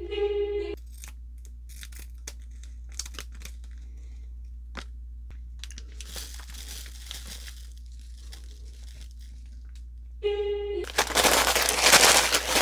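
Plastic Samyang Ramen packet and its seasoning sachet crinkling and rustling as they are handled, with scattered small crackles. Near the end comes a much louder burst of rustling as a sachet is shaken.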